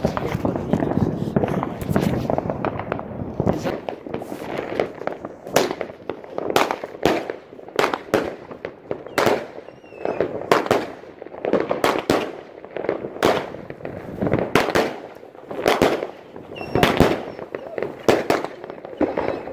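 Fireworks going off: a dense, rapid crackle for the first few seconds, then a run of sharp bangs at irregular intervals, about one or two a second, each echoing briefly.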